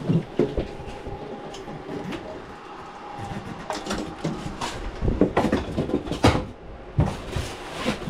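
A Mitsubishi MR-C33H refrigerator being shifted and worked free of its packing base. A scraping rub with a faint squeak comes first, then several knocks and bumps in the second half.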